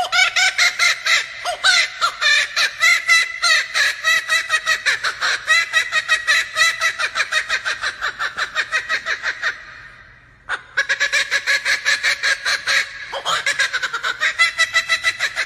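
Laughing kookaburra giving its laughing call: a loud, rapid run of repeated cackling notes. The call fades out about two-thirds of the way through, then starts again suddenly.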